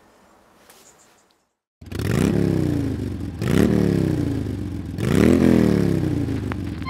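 Intro sound effect: three loud revving swoops about a second and a half apart, each rising quickly in pitch and then falling away. They start about two seconds in, after a short dead-silent gap.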